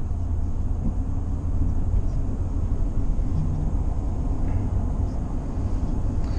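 Steady road rumble inside a moving car's cabin: a continuous low drone of tyres and engine at cruising speed.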